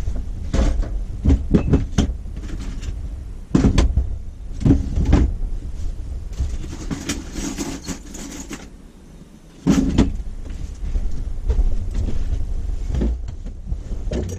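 Knocks, clicks and clatter of kitchen cupboards, drawers and utensils being handled in a small camper galley, a dozen or so separate sharp knocks with a scraping stretch in the middle, over a steady low rumble.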